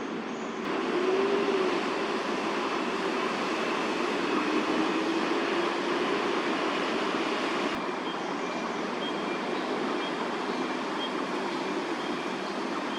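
Steady city traffic noise with a vehicle's engine hum wavering under it, swelling about a second in and easing slightly past the middle.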